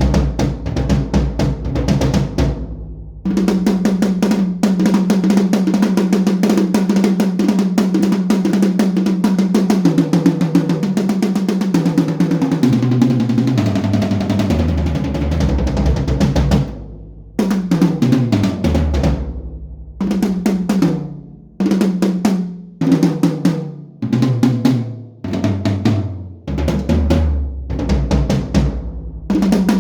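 Sonor HiLite maple drum kit being played: a long drum roll around the toms that steps down in pitch from the small toms to the big floor toms, then a run of short fills, each falling in pitch, with brief gaps between them.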